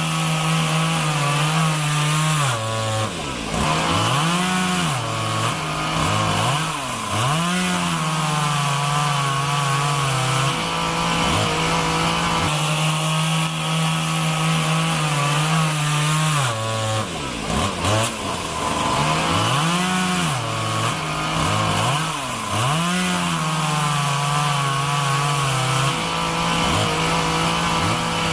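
Two-stroke chainsaw running, its engine revved up and down again and again between steadier stretches, as in chainsaw wood carving.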